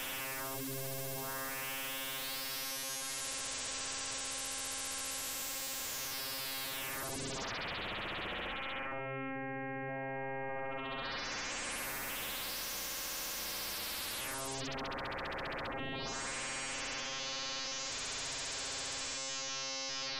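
Two-operator FM synthesis from a Symbolic Sound Kyma system, played live with PlayStation controller joysticks: a sustained synth tone whose brightness swells and falls in repeated sweeps as the joysticks change the modulation.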